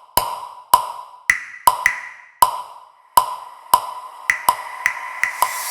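Electronic music intro of sharp, ringing tick-like hits, roughly two a second, switching between a lower and a higher pitch.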